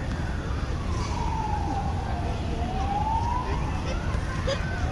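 A wailing siren, its pitch sliding slowly up and down, each rise or fall taking about two seconds, over a steady low rumble.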